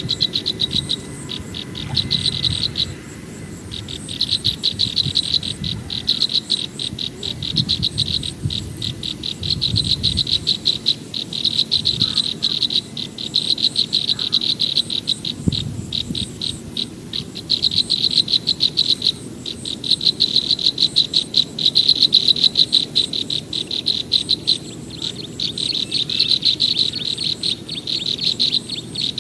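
Insects, crickets or the like, chirping in a rapid, high-pitched pulsed chorus that runs in long stretches with a few brief breaks, over a low rumble.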